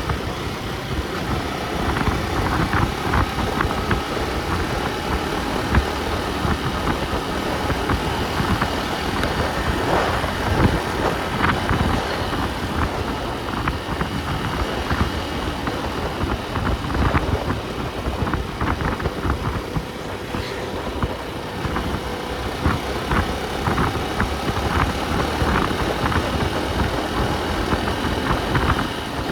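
Motor vehicle on the move: steady engine and road rumble with frequent small rattles and knocks.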